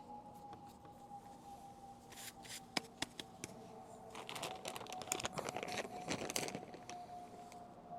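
Rustling and crinkling handling noise with several sharp clicks, over a faint steady tone that slowly sinks in pitch.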